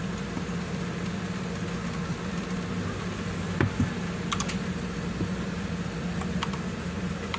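A mechanical keyboard being handled: a few scattered clicks and taps, with two louder knocks about halfway through, over a steady low hum.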